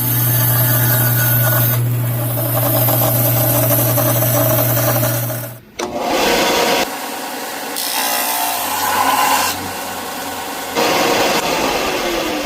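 Electric power tool cutting and shaping purpleheart wood, heard in several short stretches that change abruptly. Near the end its motor winds down in a falling whine.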